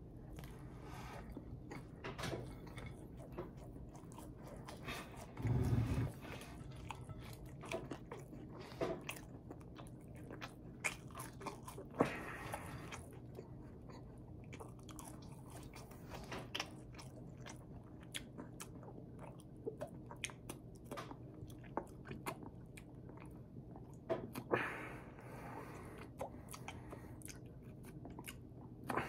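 A person eating a Western Bacon Cheeseburger and french fries: bites and chewing with many small clicks, and a dull low thump about five and a half seconds in.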